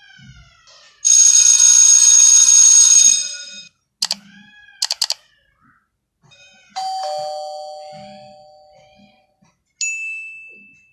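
A string of separate stock sound effects. About a second in, a loud steady ring with several tones lasts about two and a half seconds, then come a few short clicks. Near the middle, a two-note ding-dong doorbell chime plays, a higher note then a lower one, fading slowly; near the end, a single short ding fades out.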